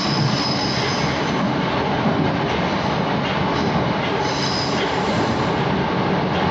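Moscow Metro 'Moskva-2020' (81-775) train running at speed through a tunnel, heard from inside the car as a steady rumble and rush of wheels and motors. Brief high wheel squeals come near the start and again at about four seconds.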